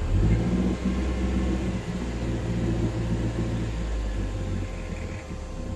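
1970 Freeman 23 motor cruiser's engine picking up revs as the throttle lever is pushed forward, running steadily at around 2,000 rpm, then easing back a little near the end.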